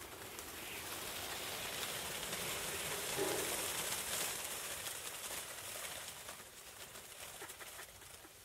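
A large flock of starlings sweeping low overhead as they drop in to roost. The rush of thousands of wings mixed with their calls swells to a peak about three seconds in, then fades away.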